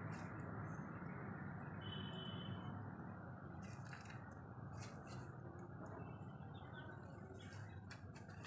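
Quiet outdoor background hum with a brief bird chirp about two seconds in, and a few faint clicks later on.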